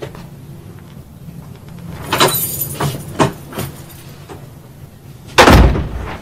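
A door being opened and someone walking in, with a few footsteps and small knocks. About five and a half seconds in comes a heavy thump, as of a door being shut.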